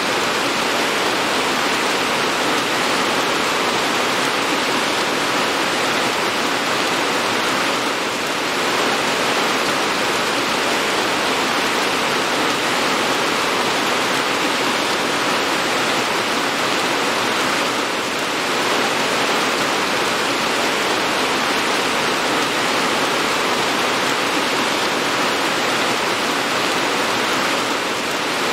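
Steady, dense rain: an even hiss of falling rain without distinct drops or thunder, dipping slightly in loudness about every ten seconds.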